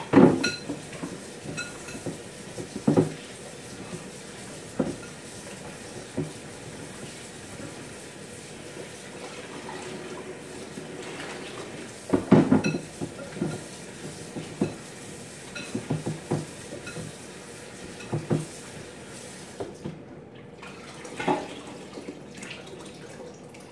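Metal pots and kitchen utensils clattering, with about ten sharp knocks in clusters near the start and about halfway through, over a steady hiss.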